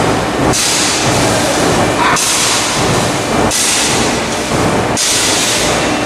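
Loud, steady machinery noise on a fabrication shop floor: a low rumble under a strong hiss that dips briefly every second or so, with a short tone about two seconds in.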